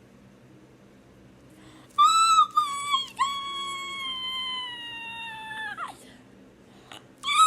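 A high-pitched, drawn-out wail typical of an infant's cry. One long cry starts about two seconds in, sags slowly in pitch and breaks off after nearly four seconds. A second cry starts near the end.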